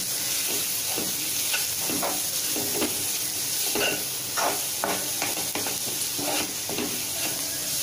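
Chopped onions and spice powders sizzling in oil in a nonstick kadai, stirred with a spatula in repeated short scraping strokes, the powders frying until their raw smell goes.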